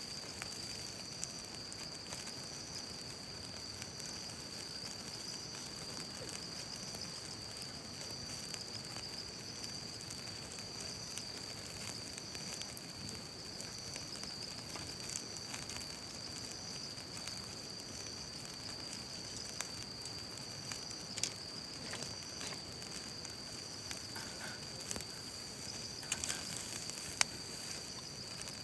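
Sauce-marinated beef skirt sizzling on a grill over a wood fire in a folding fire pit: a steady hiss with scattered crackles and pops, which get louder and more frequent in the second half. A steady high-pitched whine runs underneath.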